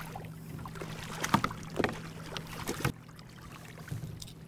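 A few sharp knocks and rattles, the loudest about a second and a half in, as a striped bass is landed with fish grippers alongside a plastic fishing kayak; a low steady hum runs underneath. The knocking stops about three seconds in.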